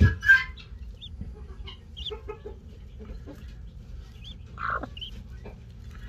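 Broody chicken hen clucking over newly hatched guinea fowl keets, which give a few short, high peeps, with one louder call from the hen near the end.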